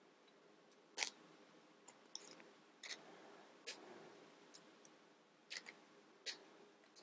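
Small plastic model-kit parts being separated from their sprue, making a string of sharp plastic clicks; the loudest comes about a second in.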